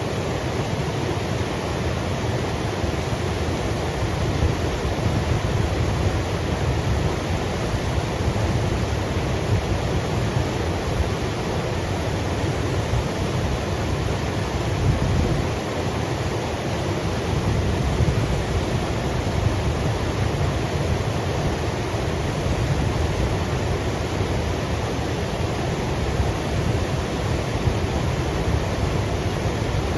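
Steady rush of Smith Creek's flowing water: an even hiss over a strong low rumble.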